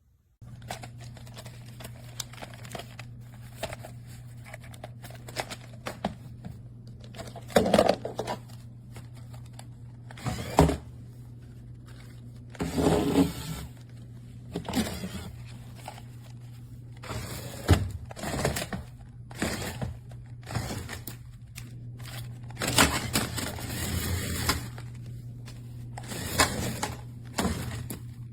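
Small electric drive motors of a remote-control shark toy car running with a steady hum, with irregular knocks and scraping as it drives and bumps about.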